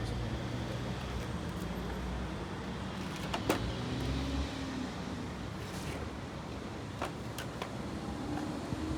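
A motor vehicle's engine running with a low, steady rumble that drops away about four and a half seconds in, with a few sharp clicks.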